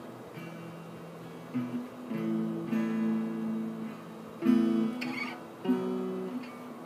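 Acoustic guitar strumming chords that are left to ring, with a few louder strums, the strongest about four and a half seconds in. These are the closing chords of the song.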